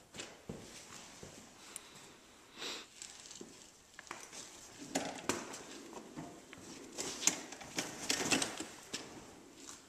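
Light handling noises: scattered small clicks, taps and rustling from hands working under the truck, busier from about halfway through.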